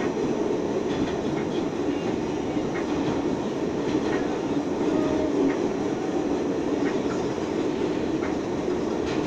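R68A subway car running through a tunnel: a steady rumble of wheels and car body, with light scattered clicks from the wheels on the track.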